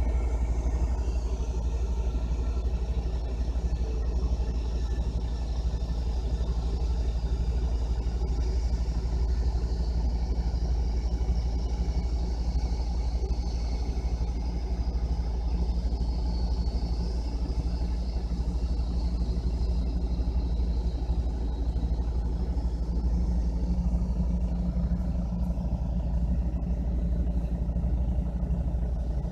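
Boeing 777 jet engines running: a steady low rumble with a faint high whine that slowly falls in pitch over the first two-thirds.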